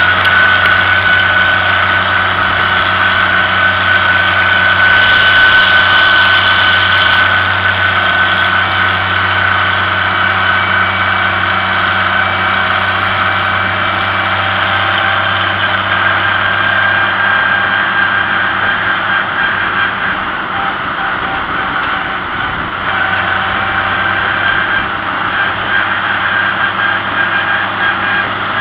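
Vintage tractor engine running steadily while the tractor is driven along, with a steady high whine over the engine note.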